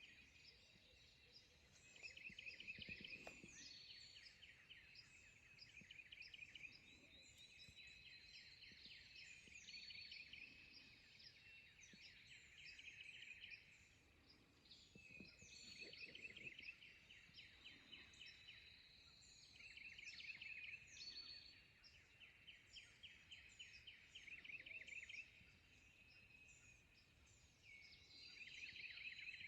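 Faint songbirds singing, several overlapping: repeated rapid trills of about two seconds each, with higher whistled notes and short chips between them.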